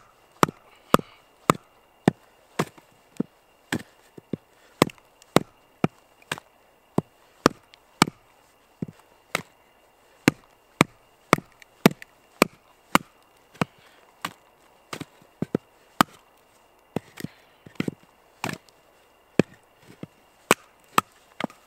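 Batoning firewood: a wooden baton repeatedly strikes the spine of a Fällkniven A1 fixed-blade knife driven down into a short log, a sharp woody knock about twice a second, some blows coming in quick pairs.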